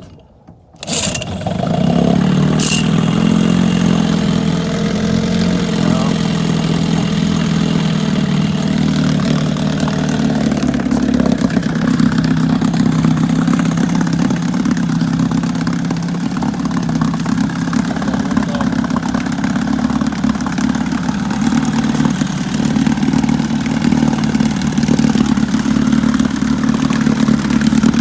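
Johnson 6 hp outboard motor pull-started, catching about a second in and then running steadily, with its lower unit in a tank of water.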